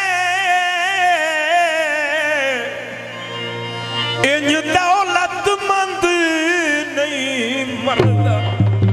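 Male singer holding long, wavering wordless notes in a Punjabi folk song, each phrase sliding down in pitch at its end, over a steady harmonium drone. Tabla strokes come in near the end.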